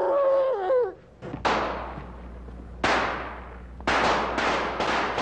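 A man's drawn-out yell ends about a second in, then rifle shots: three single shots spaced more than a second apart, then a quick run of several shots a second near the end.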